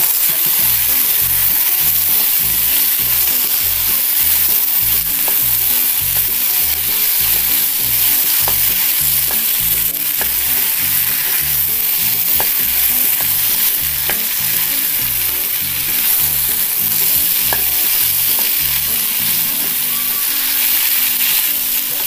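Chopped green capsicum and potato frying in onion-tomato masala in a nonstick pan: a steady sizzle under the rhythmic scrape and push of a wooden spatula stirring, with a few light clicks.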